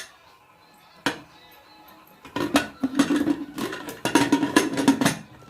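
Metal cookware being handled around a pressure cooker: a single sharp knock about a second in, then about three seconds of rapid metallic clinking and rattling with a ringing tone.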